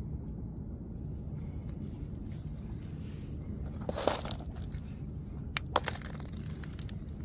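Small hard items rattling and clicking in a plastic tackle box as a hand rummages in it, loudest about four seconds in, followed by a few light single clicks, over a steady low rumble.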